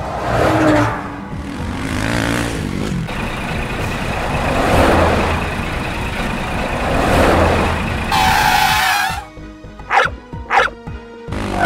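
Vehicle engine sounds over background music; near the end a dog barks a few times, short sharp barks.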